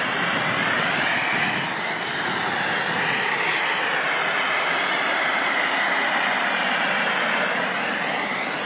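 A volcanic fumarole on a crater rim jetting superheated steam and sulfurous gas with a loud, steady hiss.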